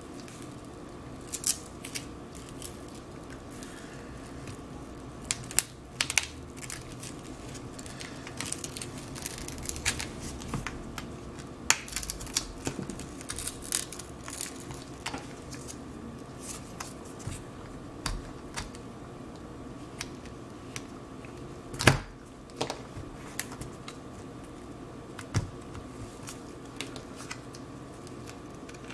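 Irregular small clicks, ticks and scrapes as a pointed tool pries a cracked iPad 6 digitizer glass loose from its frame, with one sharper snap a little past the middle. A faint steady hum runs underneath.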